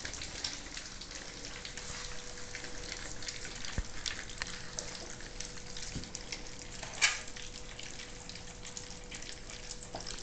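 A litter of 3-week-old German Shorthaired Pointer puppies lapping and slurping wet solid food from trays: a constant wet patter of many small smacks and clicks. One louder sharp noise comes about seven seconds in.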